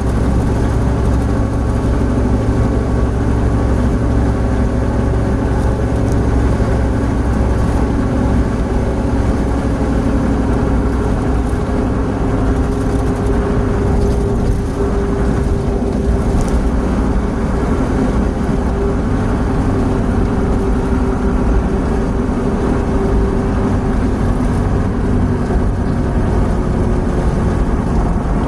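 Opel Blazer at highway speed, about 100 to 110 km/h, heard from inside the cabin: a steady drone of engine, tyre and wind noise.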